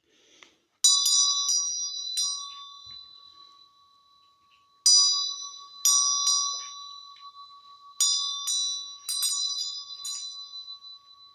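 A small bell struck or rung repeatedly in three bursts, each strike ringing on with a high, bright tone and fading between bursts.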